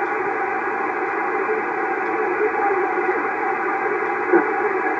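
Home-built vacuum-tube 40-meter shortwave receiver playing steady hiss and static through its speaker, with a brief blip about four seconds in.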